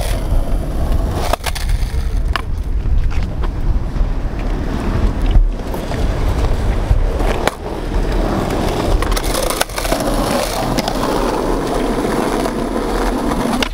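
Skateboard wheels rolling over concrete with a steady rumble, broken by several sharp clacks of boards striking the ground. The rolling grows louder in the second half.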